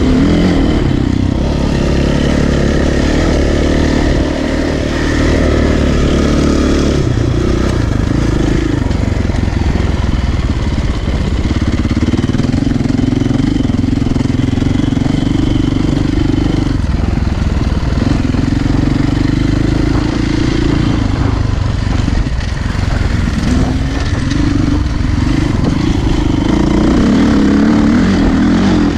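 Dirt bike engine running under load while riding a trail, its revs rising and falling as the rider works the throttle.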